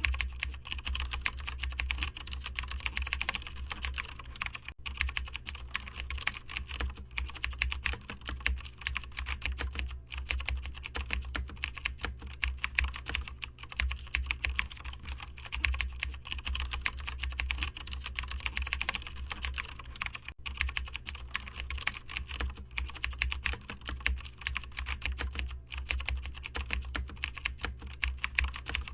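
Continuous typing on a computer keyboard: a fast, steady patter of key clicks, broken by a few brief pauses.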